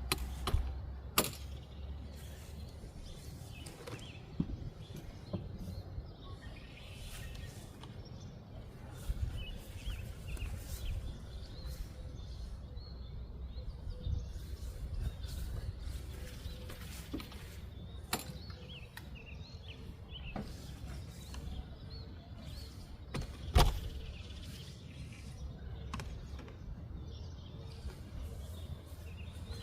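Outdoor background noise: a steady low rumble with small birds chirping now and then, and a few sharp knocks, the loudest about a second in and near the middle of the second half.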